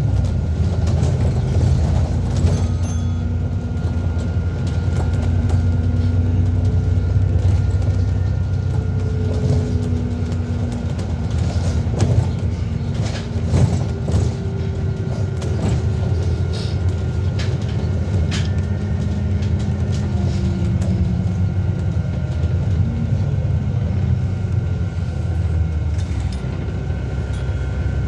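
Cabin sound of an ADL Enviro400MMC double-decker bus on the move: a steady low engine and drivetrain rumble with a faint whine rising and falling, and a few sharp rattles partway through.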